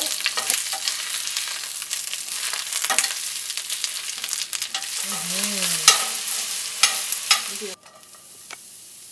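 Baby bok choy sizzling loudly in a hot stainless steel skillet with chopped garlic, turned with metal tongs that click against the pan. Near the end the loud sizzle cuts off abruptly to a much quieter sizzle.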